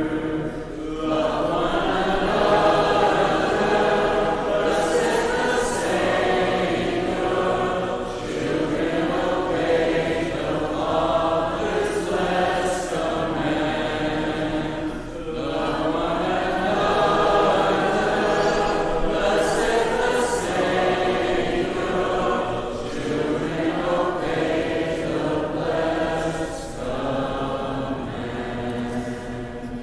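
Congregation singing a hymn together in parts, many voices with no instruments, the song drawing to a close at the end.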